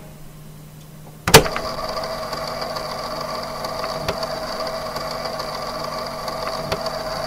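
A cassette player's mechanism clicks about a second in, then its tape transport runs steadily with a motor whir and tape hiss.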